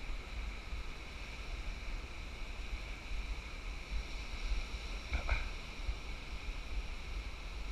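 Wind buffeting the camera microphone over a steady hiss of surf breaking on a sandy beach, with one brief short sound about five seconds in.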